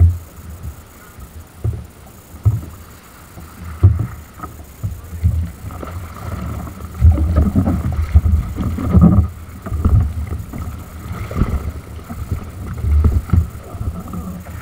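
Rough sea against a fishing kayak, heard close up from the boat: irregular low thuds and splashes of swell hitting the hull, with wind buffeting the microphone. Paddle strokes through the water join in the second half.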